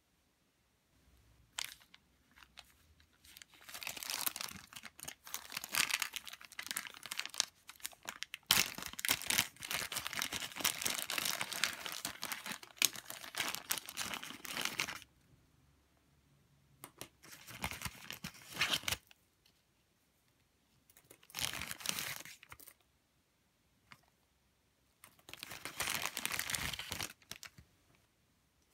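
Clear plastic packaging bag crinkling and rustling as it is handled, in one long stretch and then three shorter bursts.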